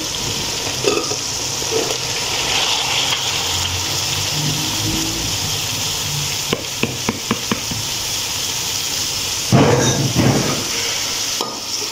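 Tomato-onion masala sizzling in an aluminium pot as chopped cauliflower and potato are tipped in from a plastic container. There are a few light clicks a little past the middle and a louder rush of noise near the end.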